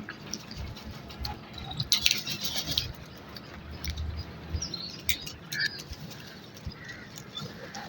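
Birds moving about: a brief flurry of wing flapping about two seconds in, with scattered taps and a few faint short calls.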